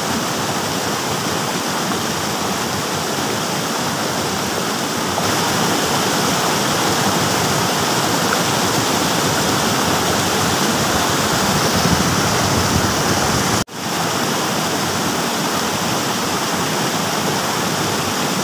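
Steady rush of a rocky stream pouring over a small cascade of boulders. The sound drops out for an instant about three-quarters of the way through.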